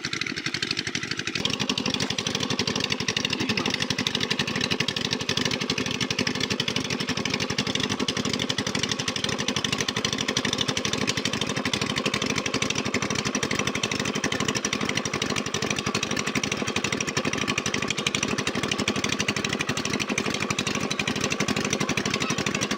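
Small engine running steadily with a fast, even firing beat; the sound fills out slightly about a second in.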